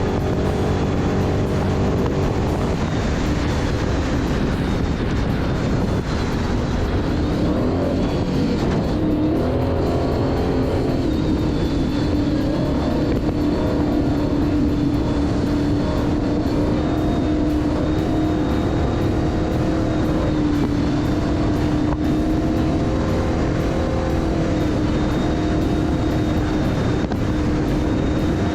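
Off-road race vehicle's engine running hard at high revs. The pitch shifts up and down about eight to ten seconds in, then holds steady. Music plays underneath.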